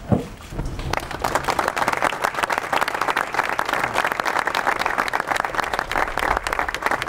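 A short low thump, then a crowd starts applauding about a second in, many hands clapping densely and steadily.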